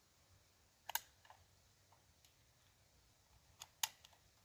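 A few faint, sharp clicks and taps with quiet gaps between them: two close together about a second in, one fainter shortly after, and a quick group of three near the end.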